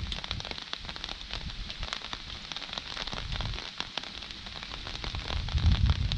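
Rain falling, with many drops ticking sharply close to the microphone. A low rumble swells near the end.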